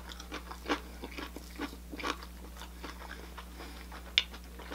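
Close-up chewing of a mouthful of hot, skinless air-fried chicken drumstick: soft, irregular wet mouth clicks and smacks, with one sharper click about four seconds in.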